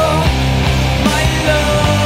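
Rock music soundtrack with held notes over a steady bass.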